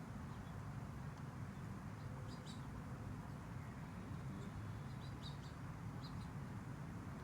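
Small birds chirping faintly in short clusters of high chirps every second or two, over a steady low background rumble.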